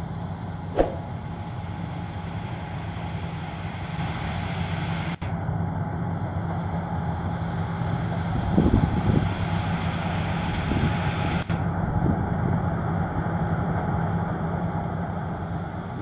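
Sumo Crown combine harvester's diesel engine running steadily under load while it cuts and threshes standing rice, with one sharp knock about a second in and a brief louder stretch a little past halfway.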